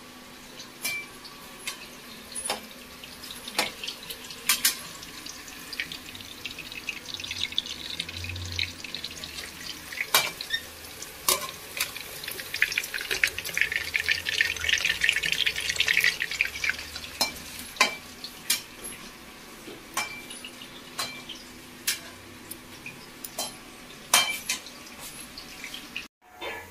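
Vegetable manchurian balls deep-frying in hot oil in a steel kadai: a steady crackling sizzle that swells louder around the middle. Sharp metal clinks come every second or two as the perforated steel skimmer knocks against the pan.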